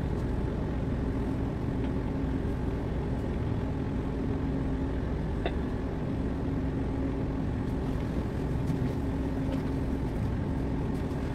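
Steady low rumble and hum of a tanker's engine and machinery under way, heard from the ship's own deck. A single light click comes about halfway through.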